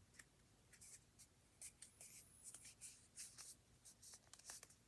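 Faint rustling and crinkling of a sheet of paper being folded and creased by hand, with scattered soft crackles and a couple of thin squeaks as fingers slide along the fold.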